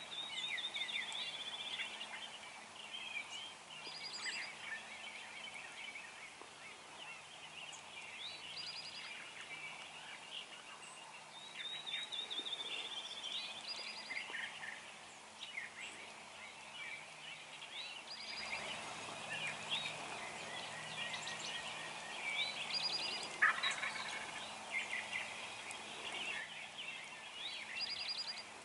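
Wild turkey calling at close range amid a dawn chorus of songbirds' chirps and quick trills, with one louder call in the last third.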